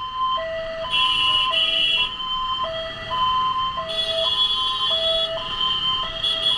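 Ambulance's two-tone hi-lo siren, switching evenly between a higher and a lower note, each held about half a second.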